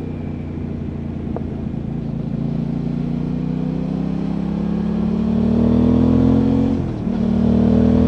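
Aprilia Tuono 660 parallel-twin engine pulling under steady acceleration on the move, its note rising slowly and getting louder, with a short break in the note about seven seconds in.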